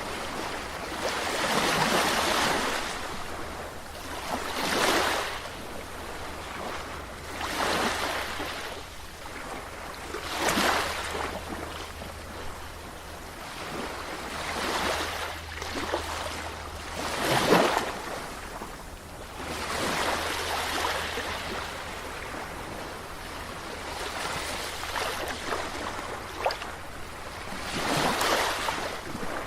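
Sea waves breaking and washing ashore, swelling and falling away every few seconds, the sharpest break about two-thirds of the way through, over a steady low rumble.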